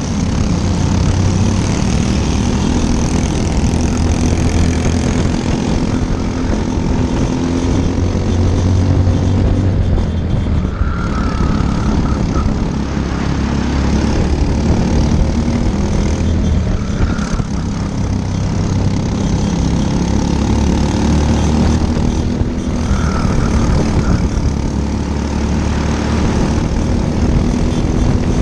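Briggs & Stratton LO206 single-cylinder four-stroke kart engine running hard at racing speed, its pitch rising and falling as the kart accelerates and lifts through the corners, with other karts' engines close by.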